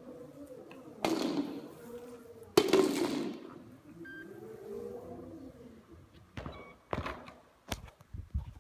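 Self-balancing hoverboard's hub motors whining, the pitch rising and falling as the board carves back and forth on concrete, with two loud rushing swells about a second and two and a half seconds in as the board passes close by. Several sharp knocks and clicks follow near the end.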